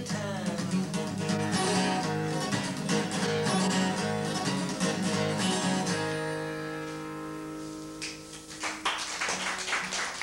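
Acoustic guitar strummed in a busy rhythm, ending about six seconds in on a final chord that is left to ring out and fade. Near the end the audience starts clapping.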